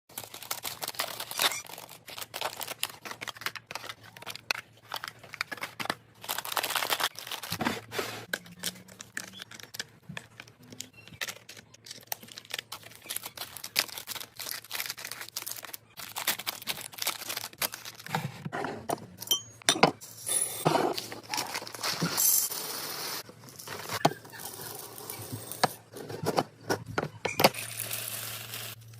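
Plastic packaging crinkling and tearing, with frequent clicks and light clatter of food containers being handled and set down.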